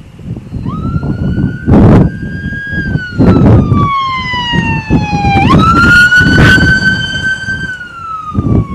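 A siren wailing. About a second in it rises, holds, then slowly falls; about halfway through it sweeps up again, holds, and starts to fall near the end. Gusts of wind buffeting the microphone break in repeatedly and are the loudest sound.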